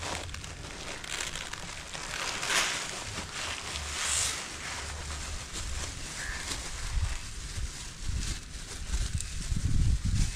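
Rustling and crackling noises, with two brief hissing bursts and a low rumbling that grows louder near the end.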